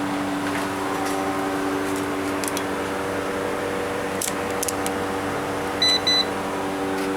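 Two short high electronic beeps from a multimeter, about six seconds in, over a steady machinery hum, with a few small clicks of the meter being handled.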